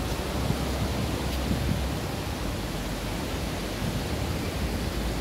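Sea waves breaking and washing up on a sandy beach, the sea fairly calm: a steady rushing noise, heaviest in a low rumble.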